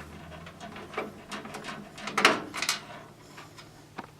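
Small clicks, knocks and a brief scrape, the loudest a little over two seconds in, as screws, a screwdriver and the motherboard are handled inside a desktop computer case.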